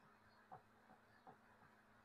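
Near silence: faint room hum with three faint, short squeaks that slide down in pitch.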